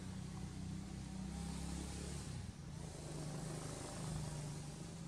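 A steady low motor hum, like an engine running nearby, with a short rush of hiss about a second and a half in.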